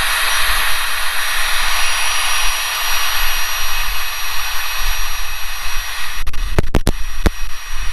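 Flextail Tiny Pump, a mini battery air pump, running with a steady high-pitched whir and rush of air as it inflates an air mat. A few sharp clicks near the end.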